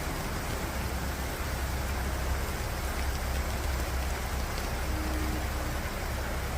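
Steady heavy rain, with a low, steady rumble underneath.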